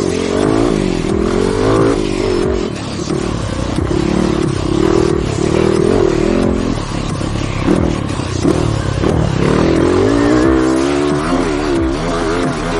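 Trail motorcycle engines revving up and easing off again and again, the pitch rising and falling.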